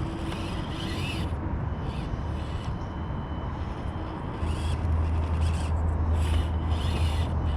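Tiny electric motor of a 1/24-scale RC crawler Jeep whining in repeated short throttle bursts as it tries to climb a wooden teeter-totter. Under it is a steady low rumble that grows louder about halfway through.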